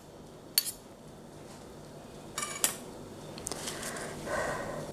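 Metal spoon and fork clinking against a ceramic plate while a portion of baked polenta is served: a few sharp clinks, the loudest pair with a brief ring about two and a half seconds in.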